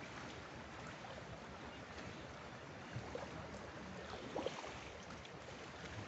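Faint steady outdoor ambience of gentle water lapping, with a brief faint sound about four and a half seconds in.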